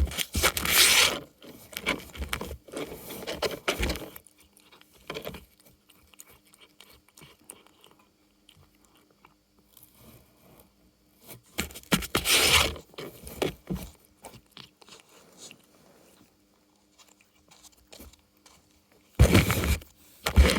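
Cat working at a cardboard food toy: cardboard scraping and crunching in a few short bursts, separated by longer quiet stretches.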